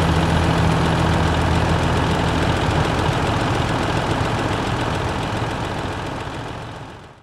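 Tractor engine running steadily, then fading away as it drives off, dying out to silence right at the end.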